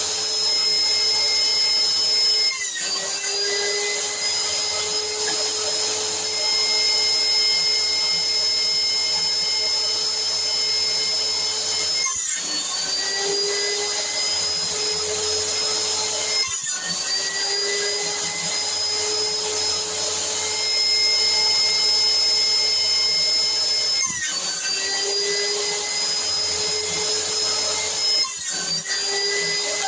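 Homemade jointer and table saw running steadily with a high electric-motor whine. Five times the sound breaks off briefly and comes back slightly lower in pitch, then climbs back to full speed.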